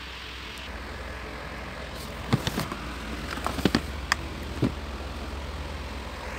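Steady background noise with a low hum, and a handful of short knocks and clicks between about two and five seconds in.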